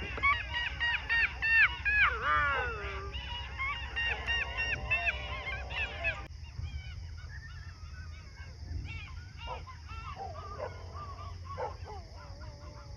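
A pack of jackals calling in chorus: many overlapping high yelps and wails that each rise and fall in pitch. They are dense and loud for about the first six seconds, then thin out to fainter scattered calls.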